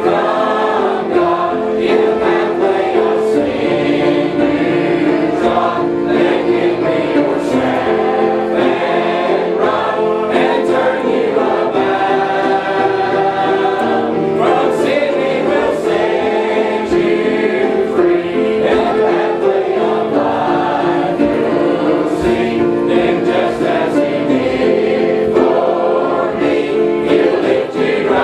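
A choir or congregation singing a gospel hymn together.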